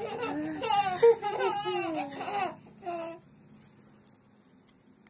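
Baby laughing and babbling in a run of high, gliding vocal sounds for about two and a half seconds, with one more short sound about three seconds in.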